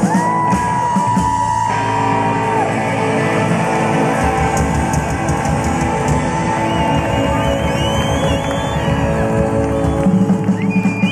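Rockabilly band playing live and loud through the PA, heard from within the audience: upright bass, electric guitar and drums, with a long held note in the first couple of seconds. The crowd yells along.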